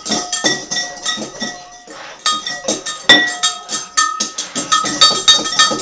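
Metal wire whisks clinking and rattling against glass mixing bowls: rapid, irregular strikes, each leaving a brief ringing note from the glass.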